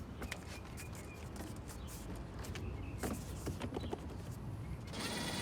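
Scattered light clicks and knocks of a plastic car door trim panel being pressed and handled as its clips are seated back into the door. A steady rushing noise rises near the end.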